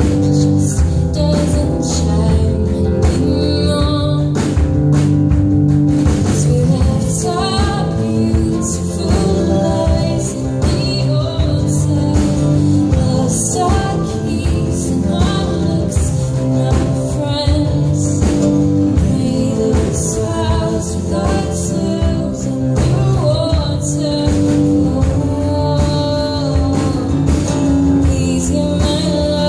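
Live acoustic folk song: two acoustic guitars strummed in a steady rhythm, with a woman singing lead.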